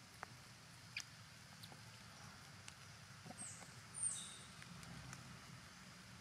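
Quiet forest ambience with a few small clicks and two short, high chirps that fall in pitch, about three and a half and four seconds in; the second chirp is the loudest sound.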